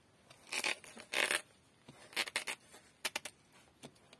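Kitchen knife cutting into the rind of a small green striped watermelon, in several short strokes about a second apart.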